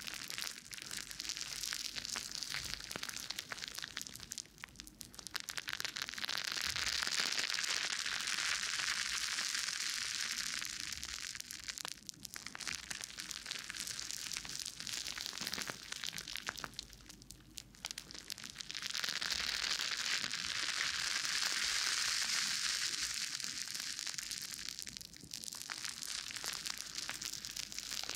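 Soapy foam sponges squeezed and rubbed against the ears of a 3Dio binaural microphone. The result is a dense, wet crackling of foam bubbles that swells louder twice in long waves of several seconds and eases off in between.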